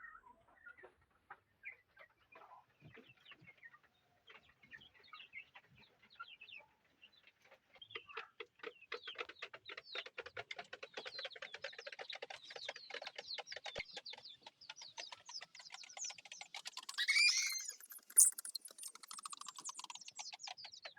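Chickens clucking: scattered calls at first, thickening about eight seconds in into a dense run of rapid short sounds, with one loud drawn-out call rising and falling in pitch near the end.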